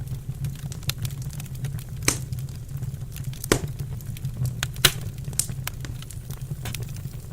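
Wood fire crackling in a fireplace: a steady low rumble with many small sharp snaps and three louder pops about two, three and a half and five seconds in.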